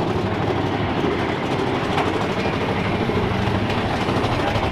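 Big Thunder Mountain Railroad mine-train roller coaster running along its track, heard from a seat on the train: a loud, steady rattling clatter of the cars and wheels.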